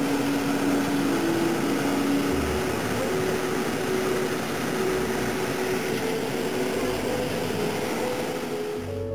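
Hot-air balloon's twin propane burner firing in one long, steady blast of rushing noise that cuts off sharply just before the end.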